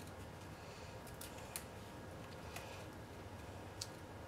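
Cardstock crinkling and ticking faintly as fingers press glued paper tabs together, a few sharp ticks spread through, over a steady low hum.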